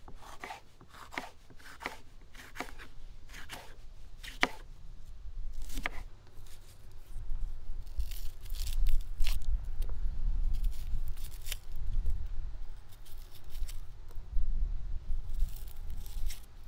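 Knife slicing a green pepper on a wooden cutting board, a short crisp cut every half second or so. From about halfway, a small knife scrapes and tears the dry papery skin off an onion, over a low rumble.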